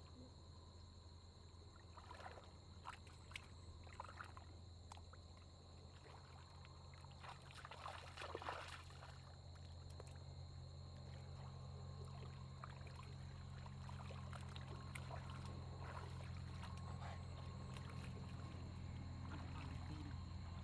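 Hands sloshing and groping in shallow muddy water, with scattered soft splashes and a slightly louder cluster about eight seconds in, over a steady low hum that grows a little louder.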